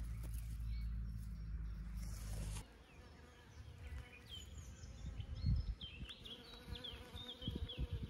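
A steady low buzzing that cuts off suddenly about two and a half seconds in. After it, small birds chirp in quick, high, repeated notes over irregular low rumbles.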